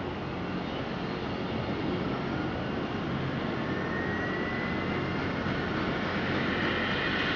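Agusta Westland AW109 twin-turbine helicopter running, with a steady turbine and rotor noise. A thin turbine whine rises slowly in pitch as the overall sound grows gradually louder.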